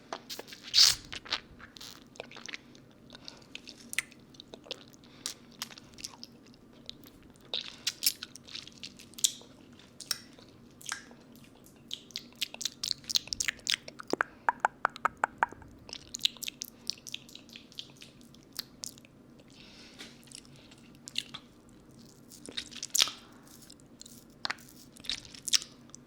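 Close-up mouth sounds of a lollipop being sucked and licked: scattered wet clicks and smacks, with a quick run of clicks about halfway through.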